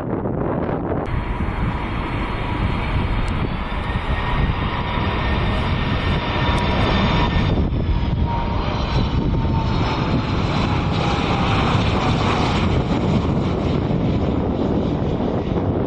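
Four jet engines of a Boeing 747-400 freighter on landing approach, a steady rumble under a high whine whose pitch slides slowly down as the jet passes.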